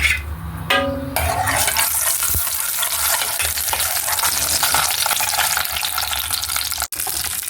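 Hot cooking oil sizzling steadily in a frying pan, starting about a second in.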